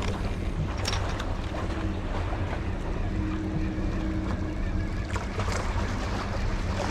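Wind on the microphone and sea water washing around a concrete tetrapod breakwater, over a steady low hum, with a couple of faint clicks.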